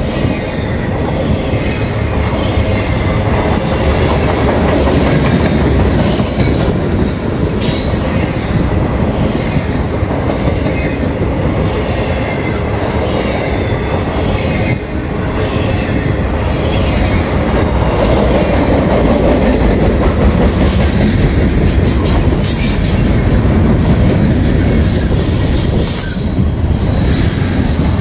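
Norfolk Southern freight cars rolling past close by: a steady rumble of steel wheels on rail, with the clickety-clack of wheels over rail joints and brief high-pitched wheel squeal now and then.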